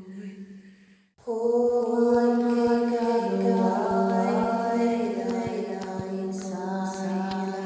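Wordless chanted singing in light language, long held vocal tones layered over one another. A note fades out to a brief near-silent break, then a new held tone comes in about a second in, with the pitch shifting and gliding a few seconds later.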